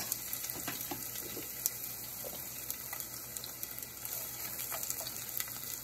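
Onions, chillies and ginger sizzling steadily in hot oil in a nonstick saucepan, with a few light taps of a spatula as they are stirred.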